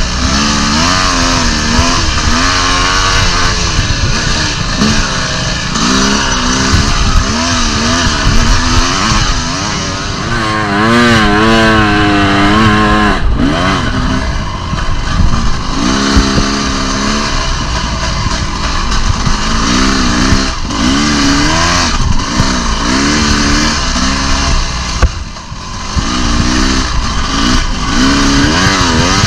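Dirt bike engine revving up and down over and over as it is ridden, with a steady rushing noise underneath. The engine briefly eases off about 25 seconds in.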